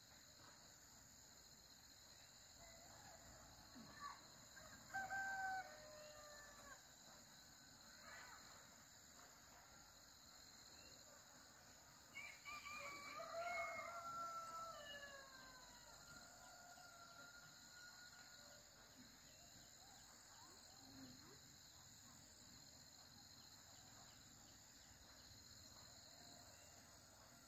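Faint rooster crowing: a short crow about five seconds in and a longer one that falls in pitch at its end around twelve seconds in, over a steady high drone of insects.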